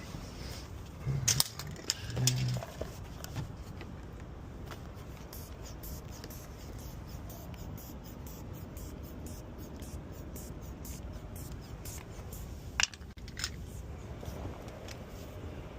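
Scattered small metallic clicks and scrapes, like a locksmith's tools working at a car door lock, over a steady low rumble. A few of the clicks come about a second in and two more near the end.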